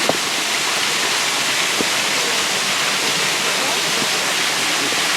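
Waterfall rushing steadily: a loud, even hiss of falling water with no break.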